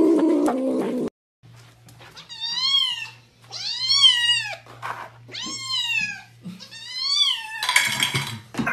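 A cat growls low for about a second. After a pause a cat meows four times, each meow about half a second to a second long, rising then falling in pitch. A rough, noisy sound follows near the end.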